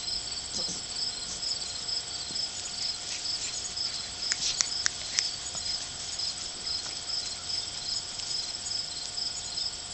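Insects chirping in a steady, evenly repeating high-pitched pulse, with a few sharp clicks about four to five seconds in.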